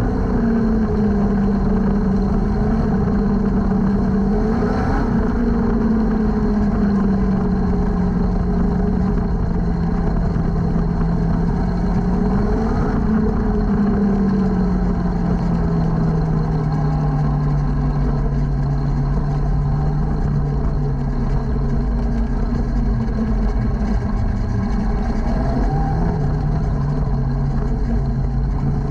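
Junior sprint car's engine heard from the cockpit, running steadily at low revs that drift slowly downward as the car slows, with a few brief throttle blips.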